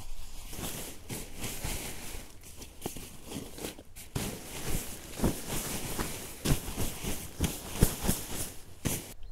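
Rustling and crinkling of camping gear being handled, with irregular crackles and soft knocks, stopping abruptly near the end.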